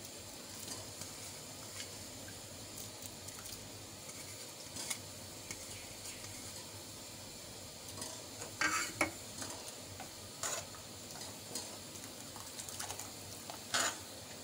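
A ladle stirring soup in a large metal pot, scraping and clinking against the pot, over a steady low hiss from the simmering pot. A few louder clinks come in the second half.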